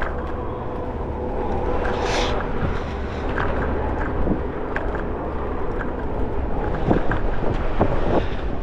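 Street ambience heard from a moving electric scooter: a steady low rumble with wind on the microphone and city traffic. A short hiss comes about two seconds in, and a few sharp knocks come in the second half.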